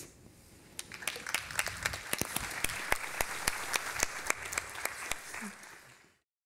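Conference audience applauding: the clapping swells over the first second or so, holds steady, then fades away near the end.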